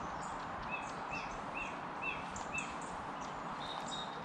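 Birds calling over a steady background rush: a run of five short, similar chirps about half a second apart, with thin high notes above them and a pair of higher, shriller notes near the end.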